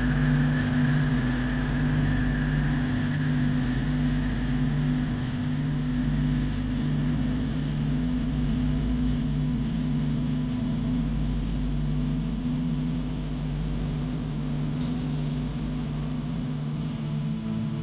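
Boat engine running with a steady low drone that slowly gets a little quieter.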